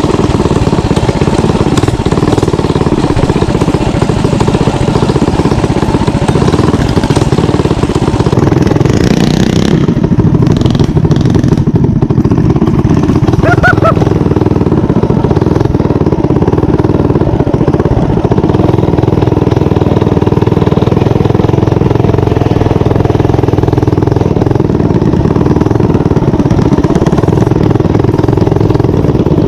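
Mini bike's small engine running steadily under way, heard from on the riding bike.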